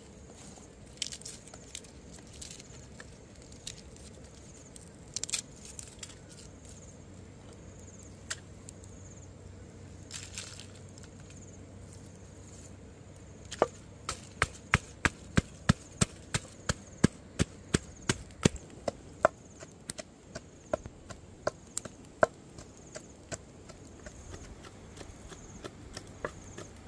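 Wooden pestle pounding chili peppers and garlic in a wooden mortar. A few scattered knocks at first, then, about halfway in, a run of sharp pounding strokes, about two to three a second, which thins to lighter taps near the end.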